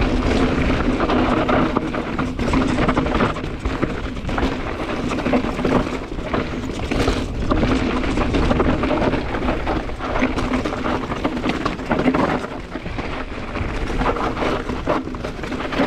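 Mountain bike riding down a dirt trail: wind buffeting the microphone over continuous tyre noise, with scattered knocks and rattles from the bike over bumps.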